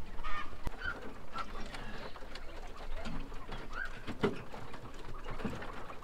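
Penned poultry calling: several short, high chirps and soft clucks, with a few scattered knocks.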